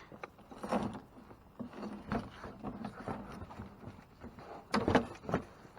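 Rummaging through a dumpster: plastic bags and packaged food rustling and knocking about irregularly as items are pushed aside, with a louder clatter about five seconds in.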